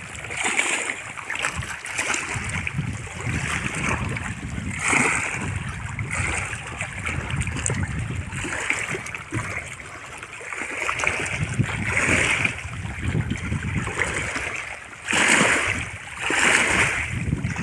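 River water splashing in several bursts over a steady wash of moving water.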